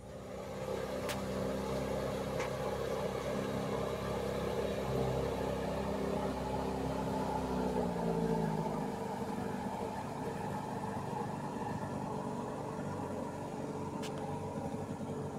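Outboard motor on a small aluminium boat running past at speed: a steady engine drone whose pitch drops at about eight seconds in as the boat goes by, then carries on a little quieter as it moves away.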